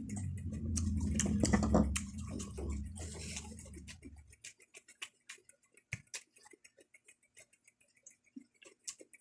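Close-miked chewing of raw pechay leaves: crisp, irregular clicks and crunches of the leaves and stems. A low rumble under the first four seconds stops, and after that the chewing clicks come sparser and quieter.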